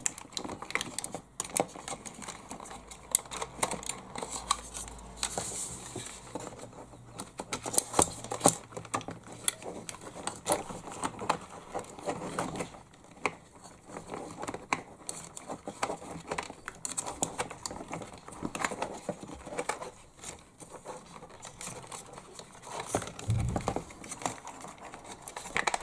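Scattered small clicks, taps and rustling of hands easing an RC receiver and its bundle of wires up into the cavity under a 1/16 scale model truck's cab, with a soft low bump near the end.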